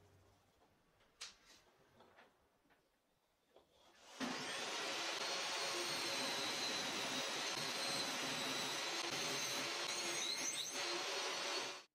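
A few faint light taps, then about four seconds in a benchtop table saw comes in suddenly and runs loud and steady, with a high motor whine, while a small wooden block is pushed through its blade with push sticks. The sound stops abruptly near the end.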